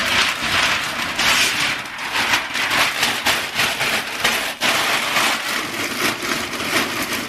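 White packing paper crumpled by hand and pushed into a cardboard shipping box, a continuous crackling rustle.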